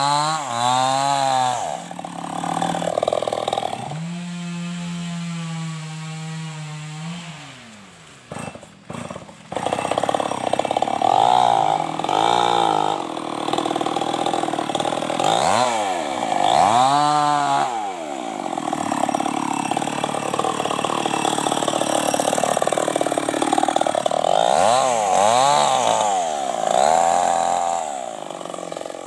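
New West 588 two-stroke chainsaw cutting through a teak log, its engine revving up and down over and over. It settles to a steady lower pitch for a few seconds, breaks off briefly about a third of the way in, then goes back to revving and cutting.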